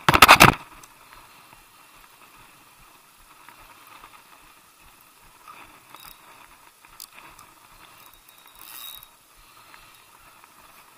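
A spinning reel's drag clicks rapidly for about half a second at the very start as a hooked squid pulls line. After that there are only a few faint clicks from handling the rod and line.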